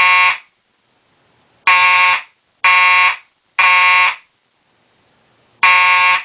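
Simplex 4901-9805 fire alarm horn sounding in code 3 (temporal-three pattern): loud half-second blasts, three in a row about a second apart, then a pause, with the next round starting near the end. The first blast is cut off just after the start.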